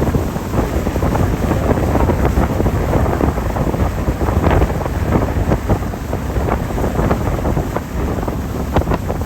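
Strong wind buffeting the microphone on a moving boat, coming in irregular gusts over a low rumble.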